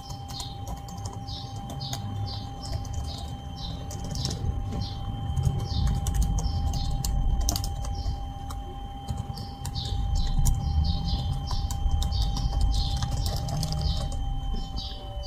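Keys of a freshly fitted replacement keyboard on a Lenovo ThinkPad T430 pressed one after another, about two or three key clicks a second, as each key is tested in turn.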